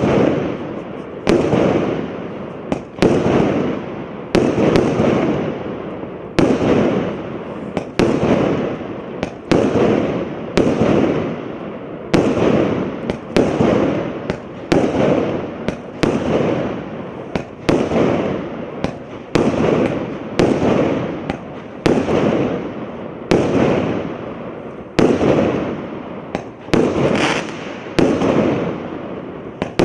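Multi-shot consumer firework barrage cake firing steadily, about one shot a second, sometimes two close together; each shot is a sharp bang followed by a fading burst.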